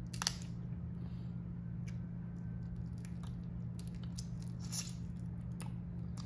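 Cooked lobster tail being picked apart by hand with long nails and eaten: scattered wet squishes and sharp clicks, the sharpest about a quarter second in, with soft chewing. Under it runs a steady low hum.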